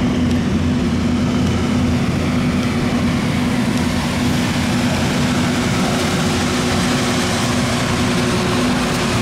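Steady machinery drone with a constant low hum, unchanging throughout.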